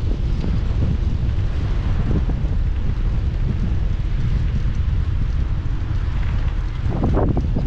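Wind buffeting the microphone of a GoPro Hero 8 action camera on a moving bicycle: a steady, heavy low rumble with a hiss above it.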